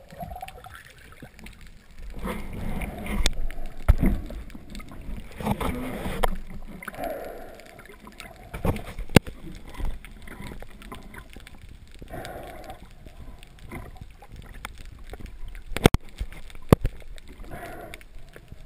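Water sloshing and gurgling in irregular swells, with several sharp clicks.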